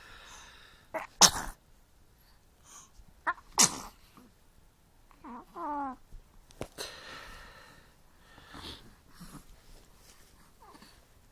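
A small child sneezing twice, sharply, about a second in and again about three and a half seconds in, followed by a short high wavering vocal sound.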